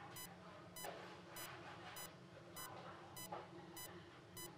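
Bedside patient monitor beeping faintly and evenly with the pulse, a little under two short high-pitched beeps a second: the heartbeat tone of the monitor during an ICU procedure.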